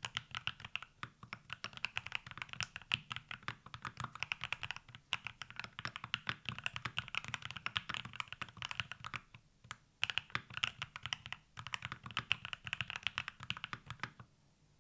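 Typing on an Epomaker MagCore87 TKL magnetic keyboard with Jade Pro switches, in stock form: a fast, continuous run of keystroke clacks. There are two brief pauses late on, and the typing stops just before the end.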